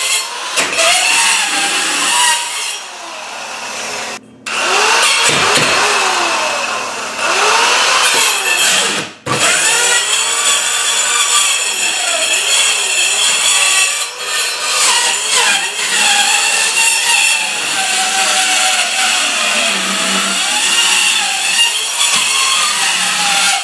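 Performax 4-1/2-inch compact circular saw, a 5.8-amp corded electric saw, cutting through old plywood flooring, its motor pitch sagging and recovering as the blade loads. The saw stops briefly twice, about four and nine seconds in, and starts cutting again.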